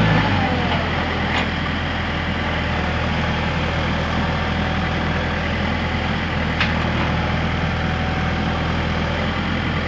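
Engine of a piece of heavy construction equipment running steadily, its speed easing down slightly just after the start, with two faint clicks.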